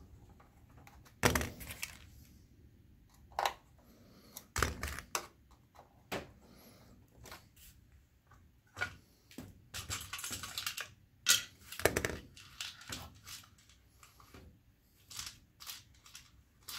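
Irregular clicks, taps and knocks of plastic and metal parts being handled inside an opened projector, with a short stretch of rustling about two thirds of the way through.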